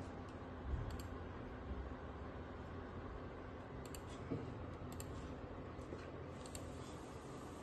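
Several home dehumidifiers running together, giving a steady fan hum with a few faint, light clicks now and then.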